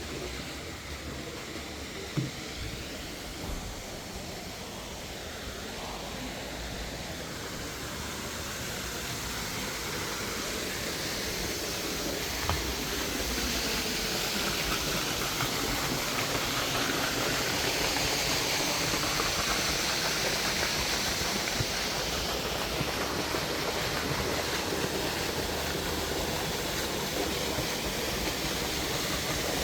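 Steady rushing of flowing water from a river or stream, growing gradually louder, with a sharp knock about two seconds in and another around twelve seconds.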